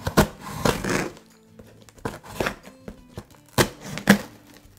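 Scissors snipping and cutting through packing tape on a cardboard box: a series of sharp cuts, the loudest about three and a half and four seconds in, over quiet background music.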